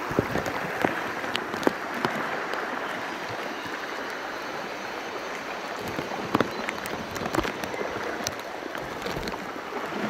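River water rushing and splashing along beside a raft, with scattered short knocks and splashes.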